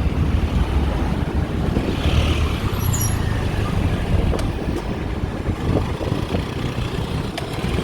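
Busy road traffic: cars and trucks passing in a steady low rumble, heard from a bicycle in the traffic, with a brief high squeak about three seconds in.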